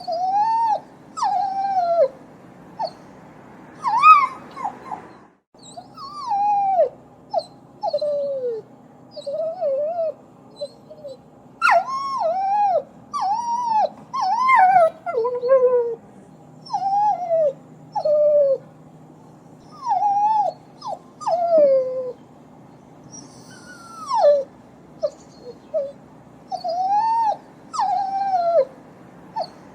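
A dog whining and whimpering: a long series of high, pitched cries, each rising and then falling. They come in short runs with pauses between them, and the sound drops out briefly about five seconds in.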